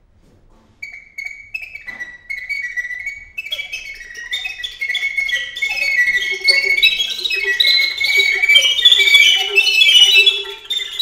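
Recorder trio playing contemporary music. Short high notes enter about a second in. More voices join a couple of seconds later, and a lower held note then sounds beneath a growing, dense cluster of high, piercing notes.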